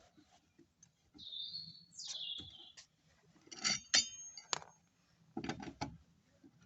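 Metal tools and brake parts clinking and knocking, with a short ring after some strikes. Two high squeaky tones come about a second in, the second falling in pitch.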